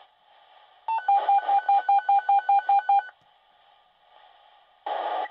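Fire department dispatch pager sounding an alert: a string of about a dozen short, loud beeps on one pitch, about five a second, over radio hiss. The channel then sits on faint hiss until a burst of radio static near the end as the dispatch transmission keys up.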